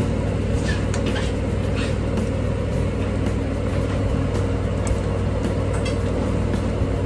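Steady low hum, with a few faint scrapes and taps of a wooden spatula stirring peanut sauce in a steel pan.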